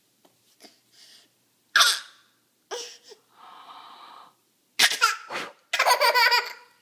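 A toddler laughing in short, breathy bursts, turning into louder, high-pitched squealing laughter over the last two seconds.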